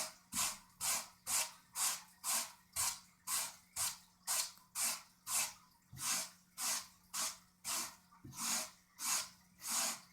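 Wire brush scrubbing a speaker cabinet's carpet covering in one direction, in regular rasping strokes of about two a second, working dust and dirt out of the carpet.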